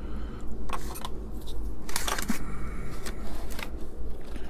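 Handling noise of ribbon cables and drive hardware being fitted: scattered plastic clicks and short rustles, the loudest about two seconds in, over a steady low hum.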